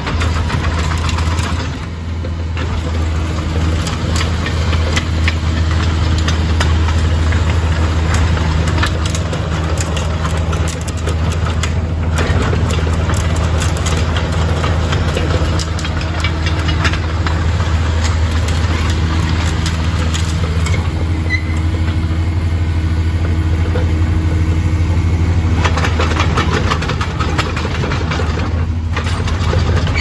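Caterpillar 305.5E2 mini excavator's diesel engine running at a steady speed with a dense diesel clatter, while the machine is worked on its tracks.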